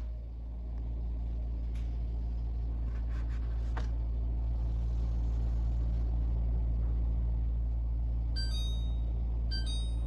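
Open refrigerator humming low and steadily, with a few faint light taps in the first four seconds. Near the end come short high electronic beeps a little over a second apart, like a fridge's door-open alarm.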